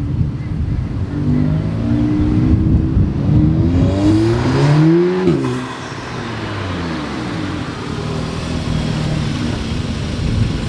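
Car engine accelerating hard, its note rising steadily for about four seconds, then dropping sharply about five seconds in and running on at a lower, slowly falling pitch.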